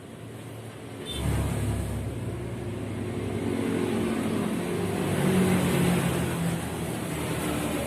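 An engine running. It comes in abruptly about a second in, and its pitch rises slightly around five to six seconds in.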